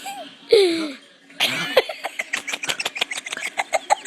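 A boy's loud burp about half a second in, sliding down in pitch, followed by laughter in quick pulses of about five a second.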